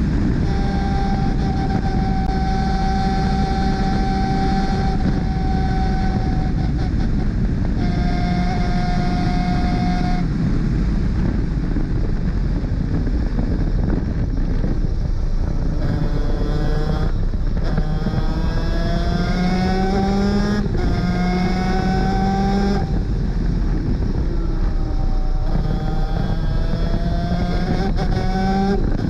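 Superkart 250's two-stroke engine at racing speed, with steady rushing noise throughout. For the first several seconds it holds a high, steady note; past the middle it climbs repeatedly, dropping back between climbs as it pulls through the gears.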